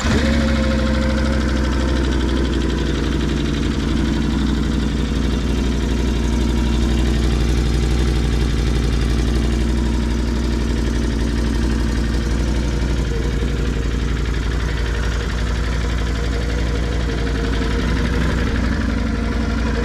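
Can-Am Outlander 570's Rotax V-twin engine idling steadily, having just caught after cranking.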